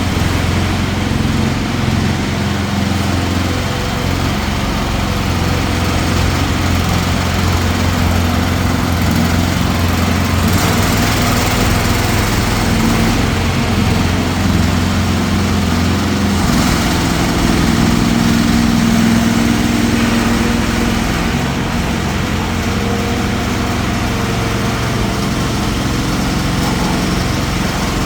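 Small engine of a compact mini excavator running steadily, its note shifting briefly a couple of times.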